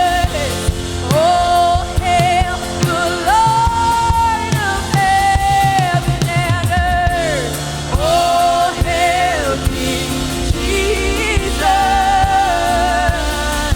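Live gospel worship music: a voice singing long, held notes with vibrato that slide between pitches, over a band with drums.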